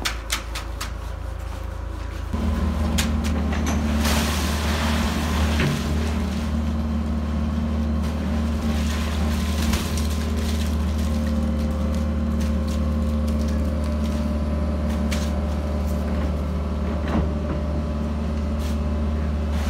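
John Deere 120 excavator's diesel engine running under load as its bucket is worked; the engine note steps up about two seconds in and holds steady. A brief rush of noise about four seconds in, and scattered clicks and knocks.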